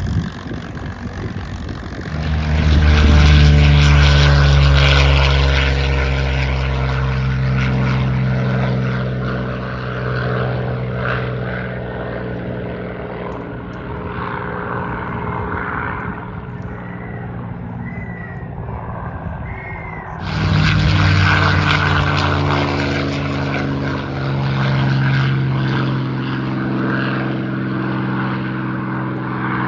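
P-51 Mustang fighters' V-12 piston engines running loud as they fly past, the pitch falling as a plane goes by. The sound swells a couple of seconds in and fades. A second loud pass begins abruptly about twenty seconds in.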